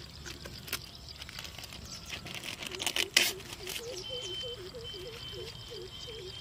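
Plastic label being peeled and torn off a 2.25-litre Coca-Cola PET bottle: light crinkling and scratching, with a louder tearing burst about three seconds in. A low chirp repeats two or three times a second in the background from about three seconds in.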